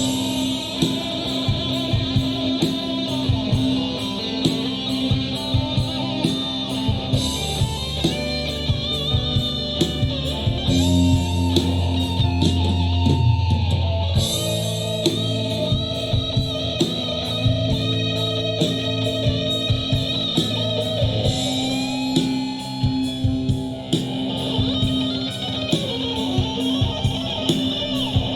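Live rock band playing: electric guitar carrying the music over a steady drum beat.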